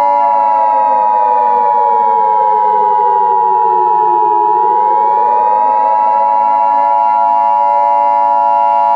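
Emergency Alert System attention tone, a loud steady electronic tone, sounding over a siren whose pitch falls for about four seconds and then rises again.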